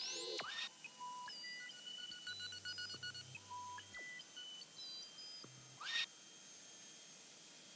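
Quiet electronic intro sound design: short beeps and blips at several different pitches, some in quick runs, with a low hum for a moment in the middle and a brief whoosh about half a second in and again, louder, about six seconds in.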